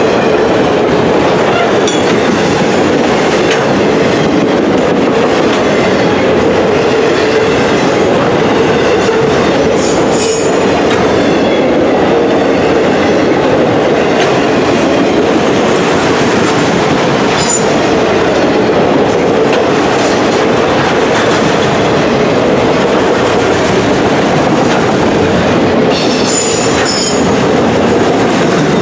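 Long CSX autorack freight train rolling past close by: a steady, loud rumble of steel wheels on rail. Brief high-pitched squeals come three times: about ten seconds in, past halfway, and near the end.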